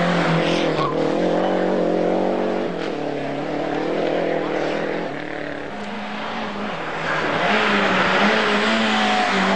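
Rally car engine running hard at high revs, its pitch shifting up and down. It fades somewhat in the middle and grows louder again about seven seconds in.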